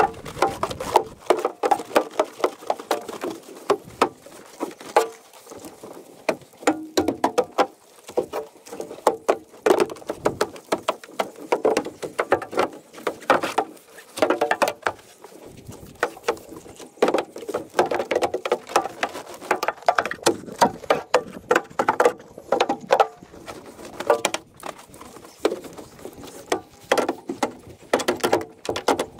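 Long-handled brush scrubbing the soapy, ribbed aluminium floor of a trailer tub, sped up threefold into a fast, choppy run of scraping strokes and clicks.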